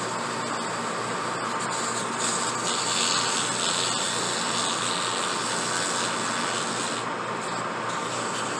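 Workshop power tool running steadily, with an abrasive rubbing hiss from about two to seven seconds in as the briar or stem is worked against it.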